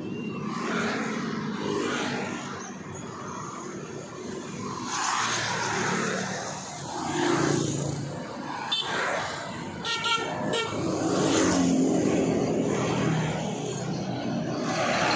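Road traffic passing, its noise swelling and fading, with a short car-horn toot about ten seconds in.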